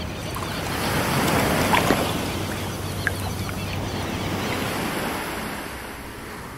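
Ocean surf sound effect: a wave washing in, swelling over the first second or two and then slowly receding.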